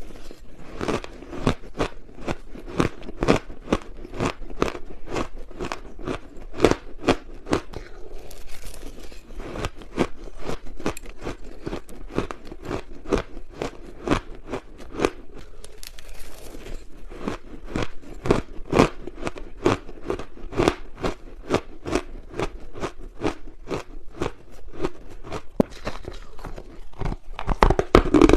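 Close-miked crunching of ice being bitten and chewed: a steady run of sharp, crackly crunches, a few every second, with short softer grinding stretches between bites.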